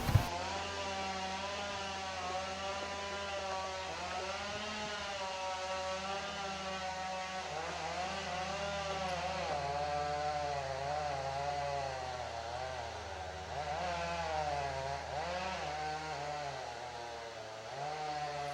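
Chainsaw cutting in the forest, heard from a distance, its engine pitch rising and falling as it works through a tree that is being felled.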